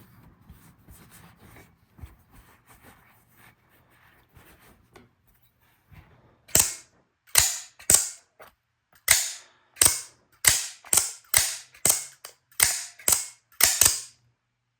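Cobratec out-the-front automatic knife, freshly reassembled and greased, being handled with faint clicks and then fired open and shut over and over: a fast run of about sixteen sharp snaps of the spring-driven blade, starting about six seconds in.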